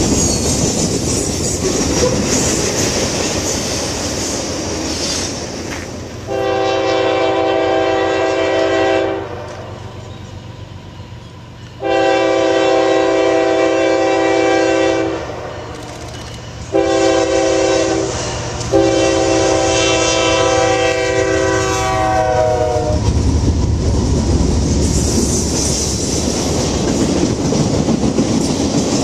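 Freight cars rumble past with wheels clacking over the rail joints. Then an approaching diesel freight locomotive sounds its multi-note air horn in the long, long, short, long grade-crossing pattern, and the intermodal train rumbles past close by with wheel and rail noise.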